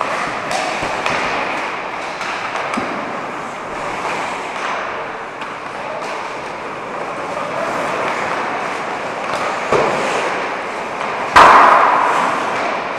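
Ice hockey game in a rink, play out of view: a steady wash of rink noise with scattered clacks and scrapes, a knock just before ten seconds, and a loud bang that rings on at about eleven and a half seconds, the loudest sound.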